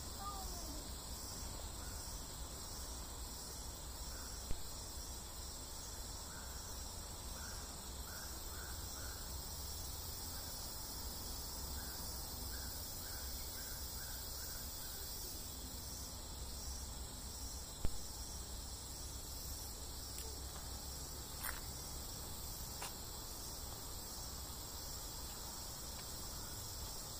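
Steady high-pitched chorus of tropical forest insects, pulsing evenly throughout, over a low rumble. Two sharp clicks stand out, a few seconds in and again about two-thirds of the way through.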